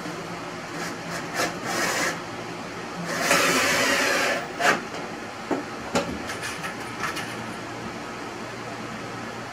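Plywood divider panel scraping against the cabinet as it is pushed into place, with a short rub and then a longer one of about a second and a half, followed by several sharp wooden knocks.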